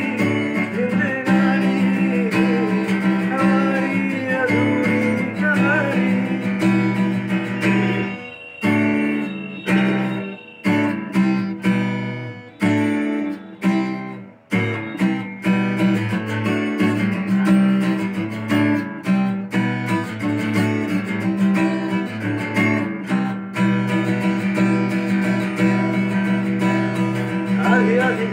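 Acoustic guitar strummed in chords, with a stretch in the middle where single chords are struck and left to ring out one after another. A man's voice sings along near the start and again near the end.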